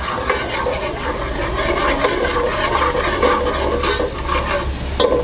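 Steel ladle stirring and scraping a thick spice paste as it fries in a steel pot, in repeated strokes against the pot.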